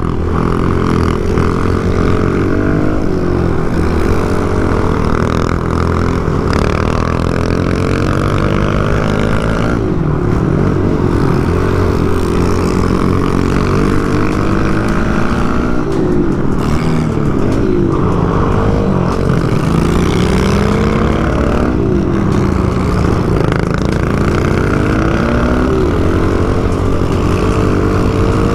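Small off-road motorbike engines running hard and revving up and down as they ride, with the pitch rising and falling constantly. At times two engines can be heard at different pitches.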